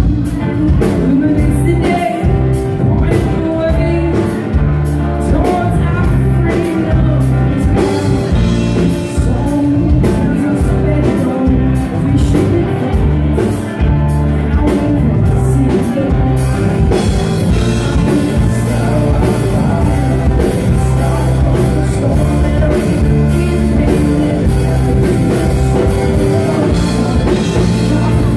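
A live rock band playing loudly: electric bass guitar and drum kit, with the cymbals filling in more densely about halfway through.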